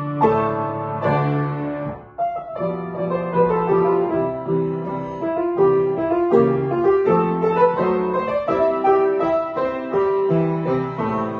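Piano playing a classical concerto movement: a melody over chords, with a short break in the phrase about two seconds in.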